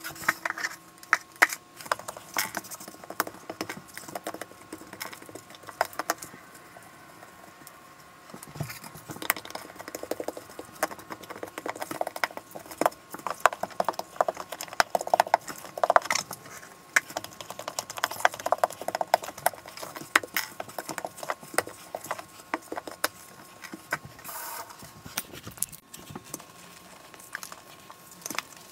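A rubber grout float working grout into the joints of glass subway tiles: irregular scraping strokes with light clicks against the glass, busiest in the middle.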